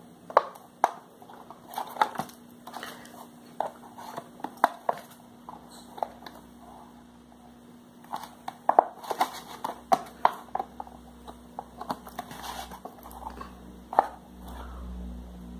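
Thin PET bottle plastic clicking and crackling under hands as it is pressed, held and turned, in irregular sharp snaps.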